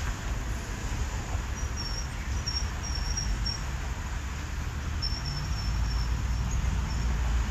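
Low steady rumble of an American Airlines Airbus A319 jet airliner passing at a distance, growing a little louder in the second half. Insects chirp in short high trills, in two runs, over it.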